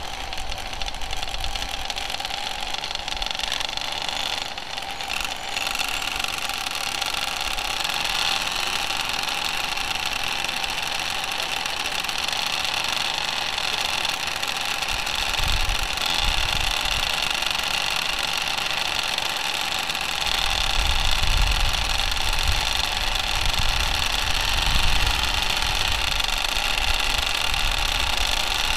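Several mini racing motorcycles' small engines running together on the starting grid, a steady high-pitched buzz. A deeper low rumble swells in about halfway and again for the last third.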